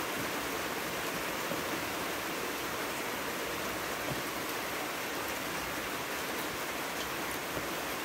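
Steady rain falling, an even hiss with no separate sounds standing out.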